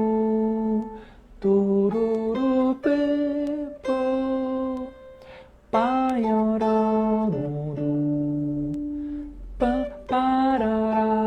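A melody picked out on guitar one note at a time, each note held for about a second, with short gaps and a few notes sliding into pitch.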